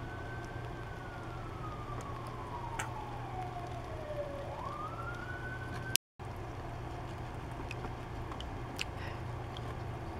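A siren in wail mode: its pitch falls slowly for about four seconds, then rises quickly again. It cuts off at a brief dropout about six seconds in. A steady low hum runs underneath, and a few faint clicks follow the dropout.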